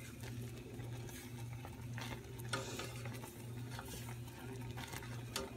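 A wooden spoon stirring and scraping a boiling chocolate sugar-and-butter mixture in a stainless steel pot, the mixture bubbling and sizzling at a rolling boil during its timed one-minute cook. A steady low hum runs underneath.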